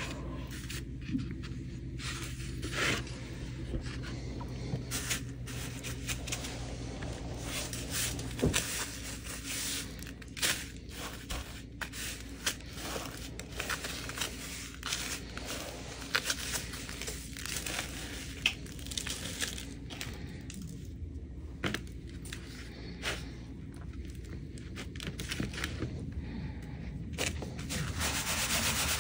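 Pork cutlets being pressed and turned in panko breadcrumbs and egg wash on paper plates: irregular crunching, rustling and scraping of crumbs and plates, over a steady low hum.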